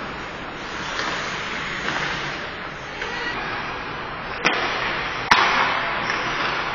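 Ice hockey game at the rink: a steady wash of rink noise, broken by two sharp knocks about four and a half and five and a half seconds in, of the kind made by sticks or puck striking the boards.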